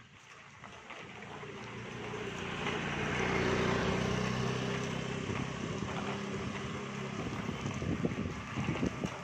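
A motor scooter's engine running as it passes close by, growing louder over the first few seconds and then fading, with wind rumbling on the microphone.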